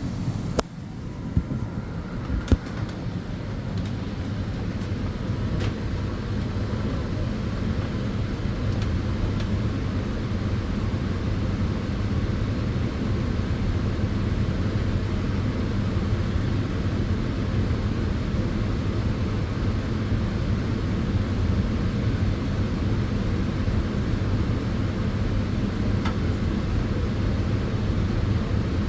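Solarium sunbed running: the steady whir of its cooling fans over a low hum. A few sharp clicks come in the first seconds as the sound builds up to a steady level.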